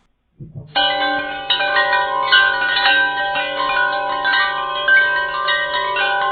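Chiming, bell-like music: many sustained ringing tones overlapping and changing over a low held note, starting about half a second in.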